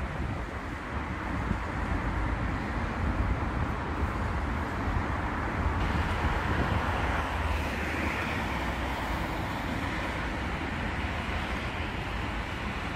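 Low-floor electric tram rolling slowly along newly laid track, a steady low rumble with a faint rising and falling whine partway through, over city traffic and some wind on the microphone.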